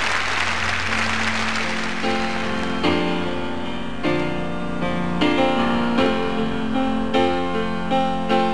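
Audience applause for the first couple of seconds, then the piano introduction of a song: chords struck about once a second over a held low note.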